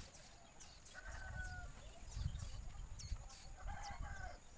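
Bird calls: two short pitched calls, one about a second in and one near the end, with scattered thin high chirps, over a low rumbling noise.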